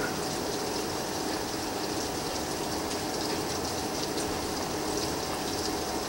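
Steady heavy rain falling during a severe thunderstorm, a constant rushing hiss with a faint steady hum beneath it.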